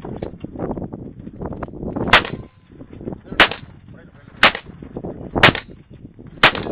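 Five gunshots fired at a steady pace of about one a second, the first about two seconds in.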